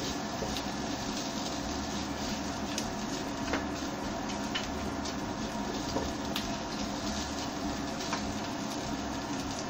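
Spice paste frying in oil in a pan, a steady sizzle, while a silicone spatula stirs and scrapes it, with a few light clicks of the spatula against the pan.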